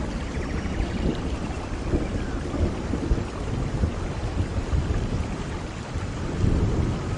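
Steady rushing background noise with a deep low rumble, swelling briefly near the end.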